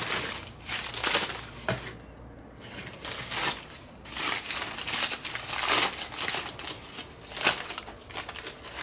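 Crumpled plastic snack-bag wrappers crinkling and rustling in irregular handfuls as they are rummaged through and pulled out of a cardboard box, with a short lull about two seconds in.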